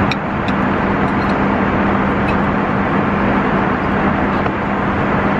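Steady in-flight cabin noise of an airliner: a loud, even rush of air and engine noise with a constant low hum.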